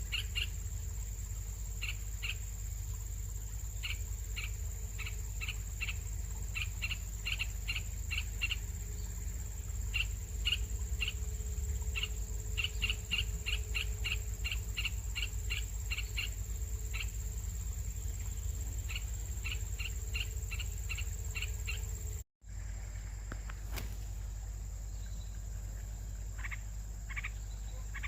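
Baby birds in the nest giving begging calls: runs of short, high chirps at about four or five a second, over a steady low hum. After a brief break about 22 seconds in, the chirps come only now and then.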